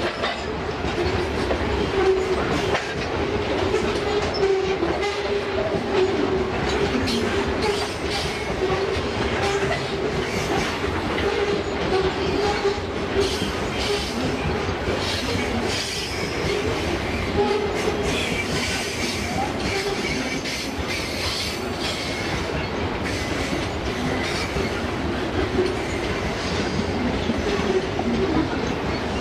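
Freight train of covered hopper wagons rolling past on a curve: a steady rumble with wheels clicking over the rail joints and a wavering squeal from the wheels on the curve.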